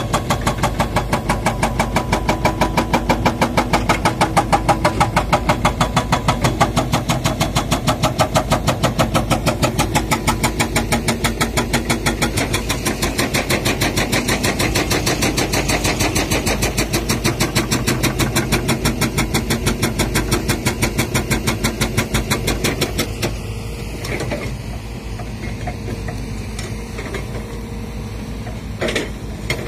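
Excavator-mounted hydraulic rock breaker hammering steadily at about eight to ten blows a second over a diesel excavator engine. The hammering stops about 23 seconds in, leaving the engine running, and there is one short knock near the end.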